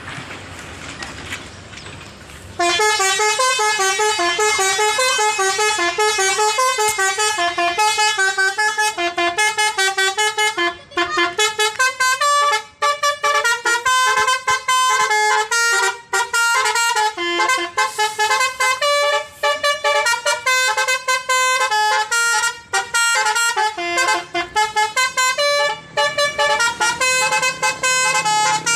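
Bus 'telolet' musical horn playing a fast tune of quickly changing notes. It starts about two and a half seconds in over low street noise and keeps going with only brief breaks.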